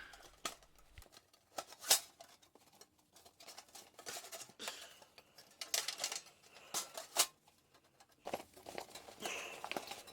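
Sheet-metal insert pieces being handled and fitted into a tool bag: scattered light metal clinks and knocks with scraping and rustling between them.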